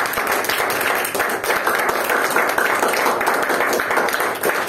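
Audience applauding: a dense clapping of many hands at a steady level.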